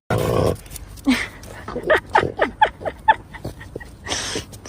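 A dog vocalising: a loud noisy burst at the start, then a quick run of about eight short, high, gliding yips and whines, and another noisy burst near the end.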